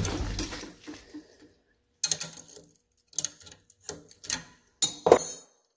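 Irregular metallic clicks and clinks of steel wrenches and fastener hardware being handled and set down, the loudest a ringing clink about five seconds in.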